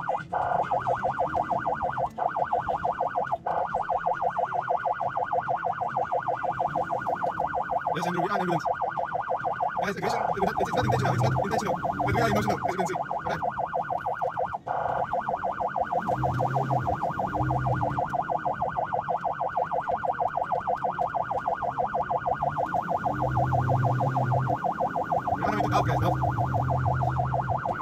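Emergency response vehicle's electronic siren sounding continuously in a fast-cycling warble. Several short, low, horn-like blasts sound over it, mostly in the second half.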